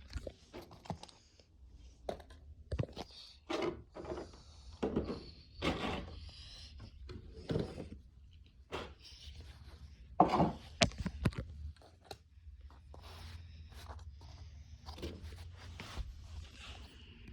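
Packaging being handled: an irregular string of rustles, scrapes and light knocks, the loudest cluster about ten seconds in.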